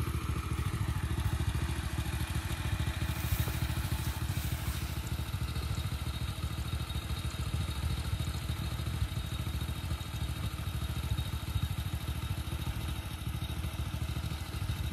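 Small motorcycle engine idling steadily, a low, even rumble of quick firing pulses.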